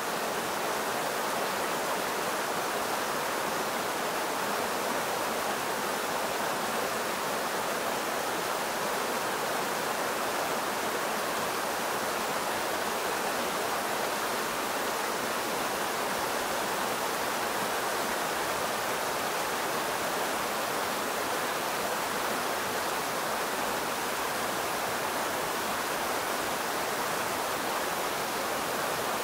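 Mountain creek rushing and splashing over a small rocky cascade: a steady, unbroken roar of white water.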